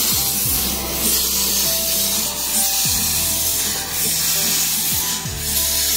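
Narrow-gauge steam tank locomotive moving slowly, steam hissing from around its cylinders in puffs about every second and a half. Background music plays over it.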